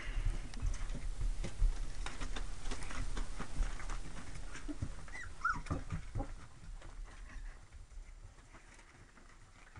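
Lab-retriever mix puppies moving about, with many quick scratchy clicks and a low rumble of movement. One short whimper comes about five seconds in. The sounds die down toward the end.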